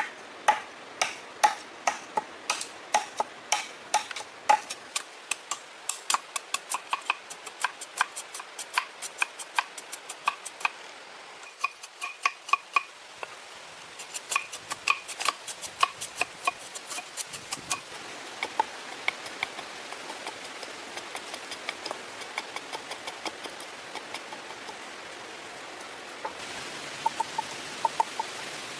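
A long run of sharp taps or knocks with a slight ring, several a second, loud for the first seventeen seconds or so and then fainter and sparser. A steady hiss rises near the end.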